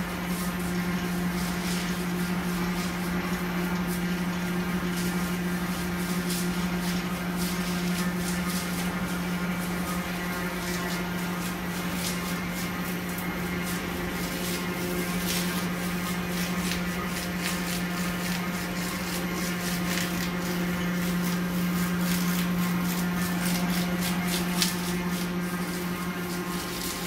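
Older rewinding machine for insect glue trap film running at medium speed: a steady motor hum with a strong low tone, overlaid with higher steady whines and scattered light clicks.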